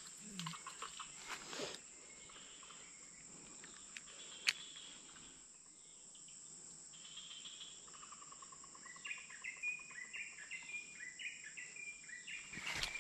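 Steady high insect drone of crickets or cicadas in tropical forest, with a few light clicks and rustles near the start and one sharp click about four seconds in. From about halfway through, a bird joins with a run of short chirps, each stepping down in pitch, about two a second.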